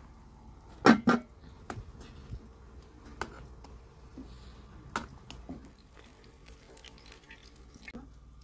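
Metal utensils clinking against metal cookware: two sharp knocks about a second in, then scattered lighter clinks as a ladle stirs a pot.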